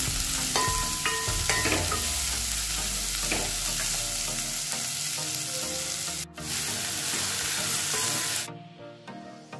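Finely chopped beans, carrot and onion sizzling as they are stir-fried and stirred in a hot pan. The sizzle breaks off for an instant about six seconds in and drops away near the end.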